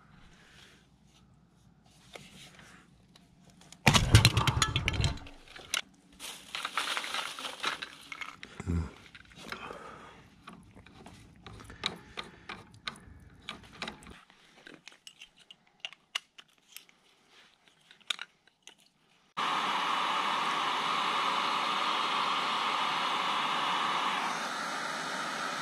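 Hands fitting plastic and brass plumbing fittings at a well pressure tank: a loud clatter of handling about four seconds in, then scattered clicks and scrapes. About 19 seconds in, a steady hiss starts suddenly and eases slightly in level near the end.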